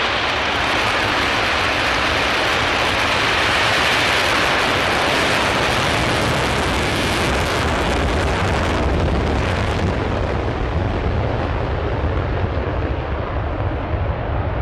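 Panavia Tornado's twin RB199 turbofans at full afterburner on the takeoff roll: a loud, steady jet noise full of hiss that loses its top after about ten seconds, leaving a deep, crackling rumble.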